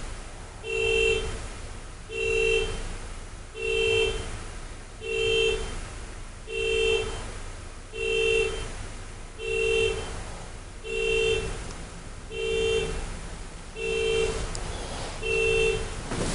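Car alarm sounding a car's two-note horn in steady, evenly spaced honks, each about half a second long, roughly one every one and a half seconds.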